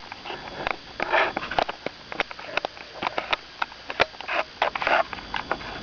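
Close handling noise: irregular rustling, scraping and small clicks, with some breathing, as a handheld camera is moved around to find the right view.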